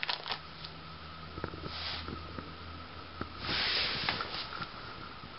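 Plastic binder pocket pages being flipped and handled: light clicks and crinkles, with two short swishing rustles, the longer and louder one about three and a half seconds in, over a faint steady hum.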